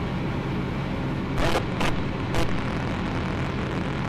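Ultralight aircraft's engine running steadily in cruise, heard from the cockpit as an even drone. Three short bursts of hiss break over it about one and a half, two and two and a half seconds in.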